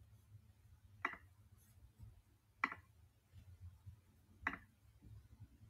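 Three faint, sharp computer mouse clicks about a second and a half to two seconds apart, over quiet room tone.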